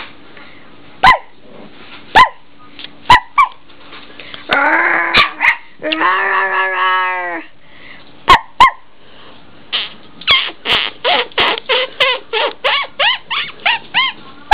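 Whippet puppy yapping: single sharp high yaps spaced a second or so apart, two longer drawn-out whining cries in the middle, then a quick run of yaps, about three or four a second, over the last few seconds.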